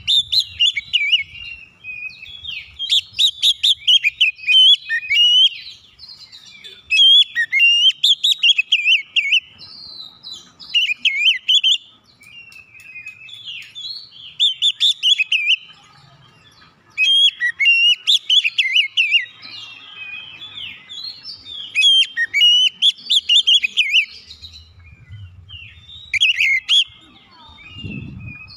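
Oriental magpie-robin (kacer) singing in bursts of rapid, varied song phrases, each a second or two long with short pauses between.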